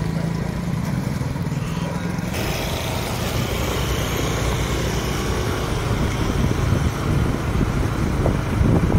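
A motorcycle or scooter engine running steadily while riding. From about two seconds in, a rush of wind on the microphone rises over it.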